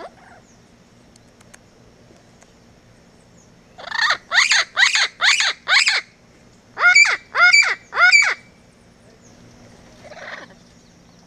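Parrots squawking: a quick run of five harsh calls about four seconds in, then a short pause and three more calls that rise and fall in pitch.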